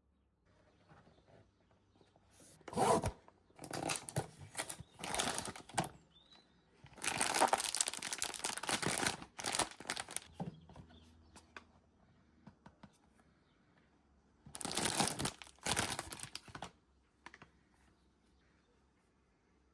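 Blind-box packaging being torn open and crinkled in several separate bursts with pauses between. The longest and loudest tear comes about seven to ten seconds in.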